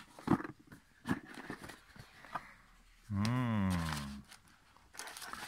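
Cardboard gift box being handled and its lid lifted off, with scattered taps and short rustles, then, about three seconds in, a loud pitched groan lasting about a second that rises and then falls in pitch.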